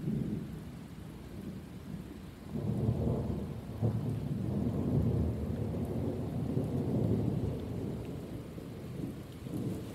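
Rolling thunder in a severe thunderstorm: a low rumble that builds about two and a half seconds in and rolls on for several seconds, over steady rain falling on wet pavement and lawns.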